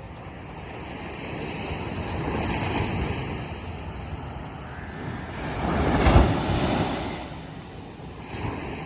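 Ocean surf breaking on a beach. The wash swells about two to three seconds in, a bigger wave crashes about six seconds in, and a smaller one breaks near the end.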